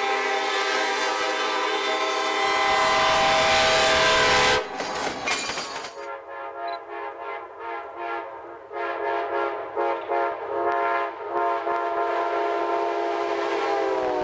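Locomotive air horn sounding a long, steady multi-note chord over the rumble of a passing train. It breaks off about four and a half seconds in for a second or so of rail noise, then sounds again with rapid clicking of wheels over rail joints underneath.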